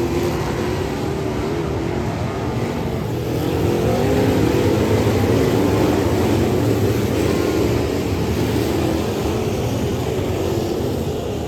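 Dirt Late Model race car's V8 engine running hard on track, its pitch rising and falling as the throttle comes on and off.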